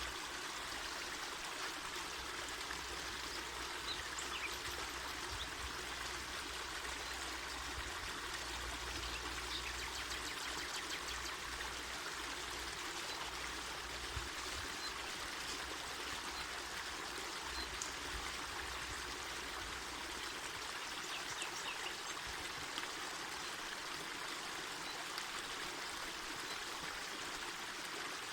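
Mountain forest river flowing, a steady rushing and babbling of water.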